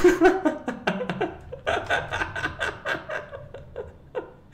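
A man laughing: a run of short chuckles that die away near the end.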